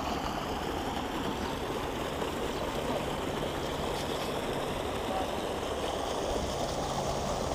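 Water rushing steadily as it pours through a gap in the bank from a brimming channel into a pond after rain.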